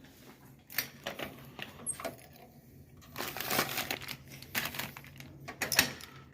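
Keys and mail being handled: scattered small metallic clicks and rattles with paper rustling, over a faint low hum.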